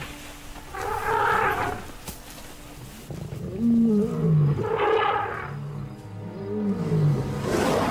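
Lions snarling and growling in short rough bursts, with two lower calls that fall in pitch, over faint background music.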